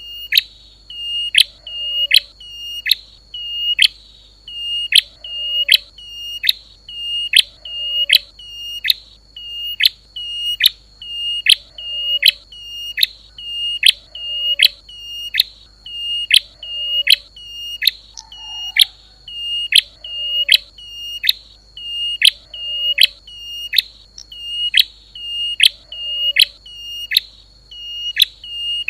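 Looped lure recording of a prenjak lumut, a prinia, calling: the same sharp, high chirp that drops to a short held note, repeated about three times every two seconds with machine-like regularity, over a steady thin high-pitched tone.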